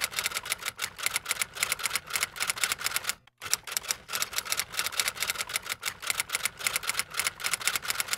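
Typing sound effect: a rapid run of key clicks, with a brief break about three seconds in and another at the end.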